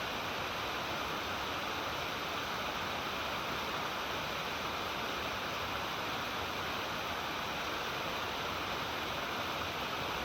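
Water pouring over a stepped waterfall: a constant, even rush with no change in level.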